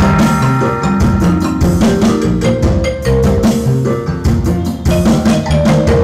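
Music with drums, a bass line and mallet-like percussion, played through two pairs of BFaudio Pro karaoke speakers (CSA 2000W and UK21) driven by a BFaudio Pro VA4850i four-channel power amplifier as a sound test.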